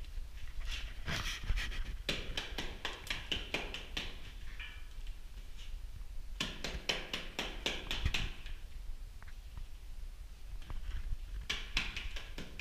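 Gloved hand working cement-sand plaster: scooping it from a bucket and rubbing it onto a brick wall. It comes as three bursts of rapid scratchy strokes, early on, in the middle and near the end, with quieter gaps between them.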